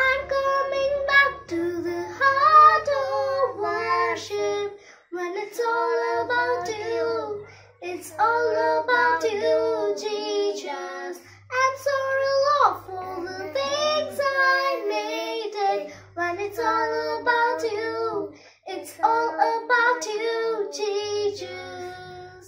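A child singing a song in phrases a few seconds long, with short breaks between them.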